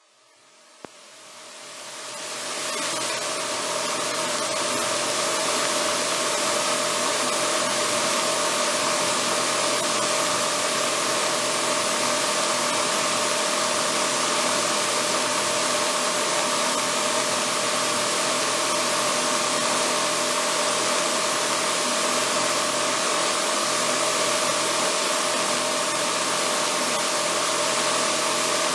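AeroTrek A240 light sport aircraft's engine and propeller at takeoff and climb power, heard inside the cockpit: a steady loud drone with a steady hum in it. It fades in over the first few seconds, with a short click about a second in.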